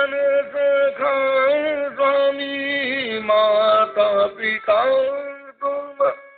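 A man singing a devotional bhajan in long held notes that waver and glide, over a steady sustained accompanying tone. The sound is cut off above the upper treble.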